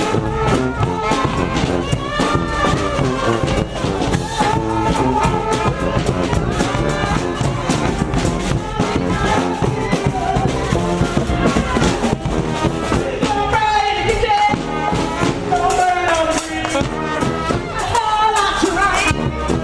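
Live street brass band with drums playing an upbeat dance tune, a singer's voice carrying over the band in places, more prominent in the last few seconds.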